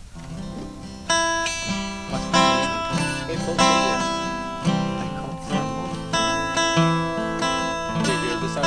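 Acoustic guitar strumming chords, starting about a second in: about seven strong strums, each left to ring before the next.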